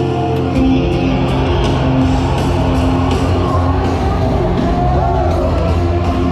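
High school winds ensemble playing: brass and woodwinds holding loud chords over a strong low tuba line, with percussion hits and a pitch glide about five seconds in.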